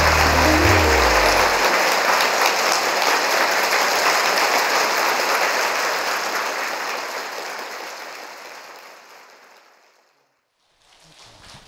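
Audience applauding as the last low notes of a song die away; the applause fades out gradually and is gone about ten seconds in.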